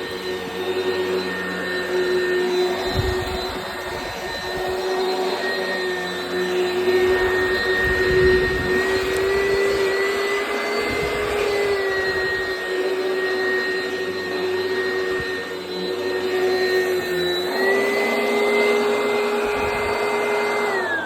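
Oreck XL Commercial upright vacuum cleaner running over carpet with a steady high motor whine. Its pitch steps up a little about three-quarters of the way through and starts to fall away at the very end as the motor is switched off.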